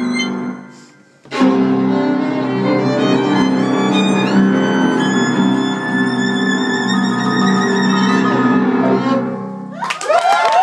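Live violin and piano: the music drops almost to silence about a second in, then comes back in with a loud struck chord, and the violin holds long notes that step upward in pitch over the piano. The music stops near the end and audience cheering breaks out.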